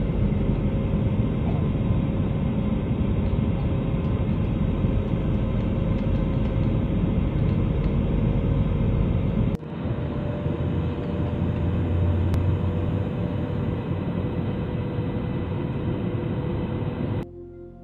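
Jet airliner cabin noise in flight: a steady, loud rumble of engines and rushing air with faint steady hums on top. It breaks off for an instant a little past halfway, runs on the same, and cuts off shortly before the end.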